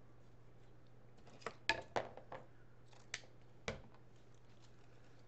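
Scissors snipping ribbon: a handful of short, sharp snips and clicks, clustered from about a second and a half to nearly four seconds in, over a faint steady hum.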